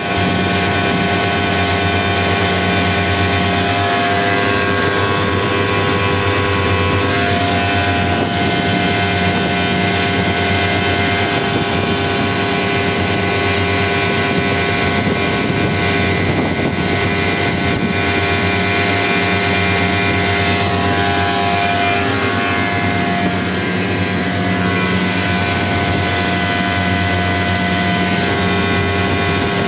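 Danfoss VZH170 variable-speed scroll compressor running at full load, a steady mechanical hum with several whining tones over a hiss. This is the unit with a small leak at the discharge line fitting, which went on to lose all its oil and lock its rotor.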